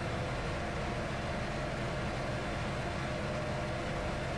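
Steady machinery hum with a low drone and an even noisy hiss over it, unchanging throughout, with no distinct tool knocks or clanks.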